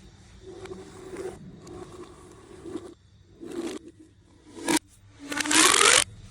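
Plastic pipe toys scraping and rasping in a series of separate strokes. The last stroke, near the end, is the loudest, and its pitch glides upward before it cuts off.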